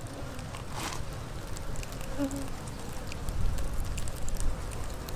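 Buzzing of a crowd of Russian honey bees swarming the entrance of a cardboard nuc box, with a low rumble swelling about three seconds in.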